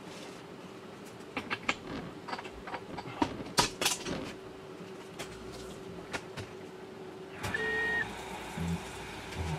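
Tormach 440 CNC mill during a tool change: a steady hum and coolant spray, broken by scattered clicks and knocks. About seven and a half seconds in, the spindle starts up with a brief high whine. Near the end the deburring tool begins cutting the aluminium part under coolant.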